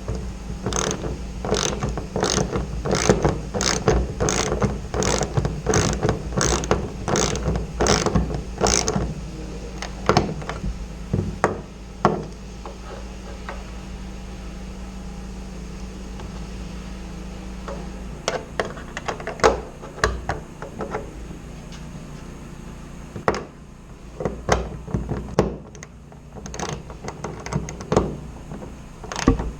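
A hand tool worked in repeated strokes while fastening aircraft pedal and brake bearing brackets. Ratchety clicks come about twice a second for the first nine seconds, then scattered clicks and knocks, over a steady low hum.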